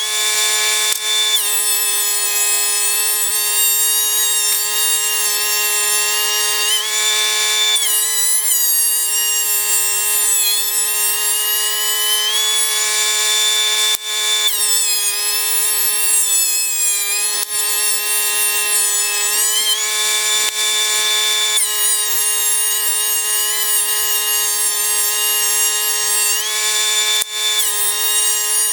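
DeWalt 13-inch thickness planer running and cutting pine boards: a loud, steady high whine with a hiss of cutting over it. The upper part of the whine sags in pitch and recovers several times as boards pass through under load.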